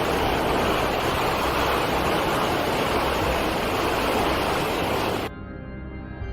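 A steady, dense rush of storm noise, like heavy surf and wind, that cuts off abruptly about five seconds in. Soft, sustained ambient music with an organ-like sound follows.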